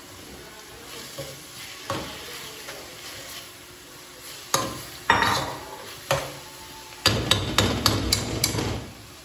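Chopped tomatoes tipped into a steel pot of frying beef and onions over a faint sizzle, then a metal utensil stirring and scraping in the pot, knocking against its sides, with a quick run of knocks about seven seconds in.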